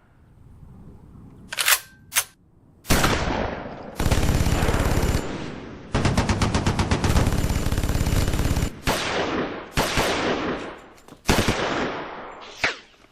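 Gunfire in a shootout: two single shots, then long bursts of rapid automatic fire with a short break in the middle, followed by several shorter bursts.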